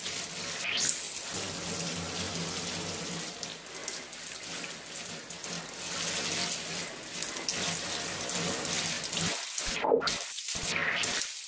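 Electronic music track's outro texture: a steady, water-like hiss of noise with a rising swoosh about a second in and a few brief cutouts near the end.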